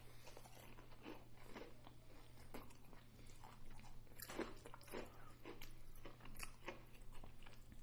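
Quiet, irregular crunching and chewing as two people bite into and eat crisp fried apple pies with fried chicken.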